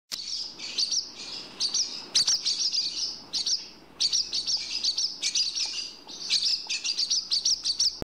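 Barn swallow twittering: rapid, high-pitched chirping phrases, with brief pauses about four seconds in and again about six seconds in.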